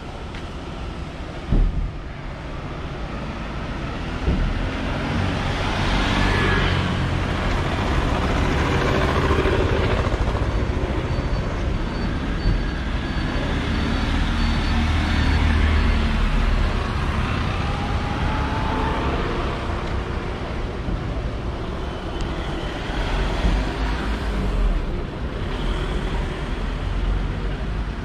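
Street traffic: motor-vehicle engines and tyres going by on a road, swelling to a steady low rumble a few seconds in and easing off a little later. A short sharp knock comes about a second and a half in.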